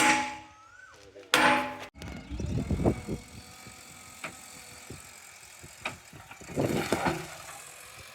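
Two loud metallic clangs about a second and a half apart, each ringing on briefly, followed by a low rumble and a few scattered knocks.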